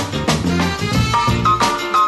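Background music: an upbeat swing-style track with brass and a steady beat.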